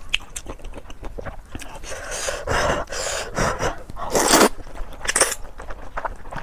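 Close-miked eating of rice noodles with pickled mustard greens and pork cracklings: steady chewing with small wet clicks, broken by four or five loud, noisy sucking slurps, the loudest about four seconds in.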